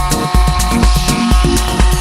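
Electronic dance music with a heavy bass beat about twice a second and steady held synth tones.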